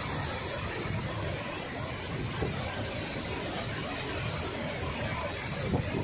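Steady rushing roar of a large waterfall in flood, heavy muddy water pouring over the falls and churning in the pool below.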